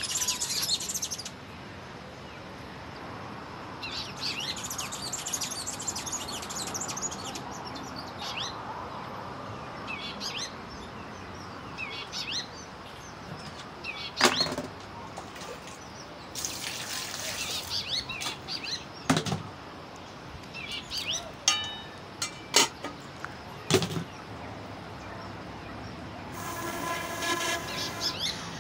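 Small birds chirping and twittering on and off, with several sharp knocks, the loudest about halfway through. A drawn-out pitched sound comes in near the end.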